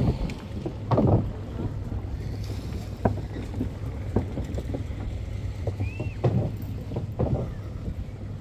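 A motor drones steadily and low, broken by several irregular thumps, with wind buffeting the microphone.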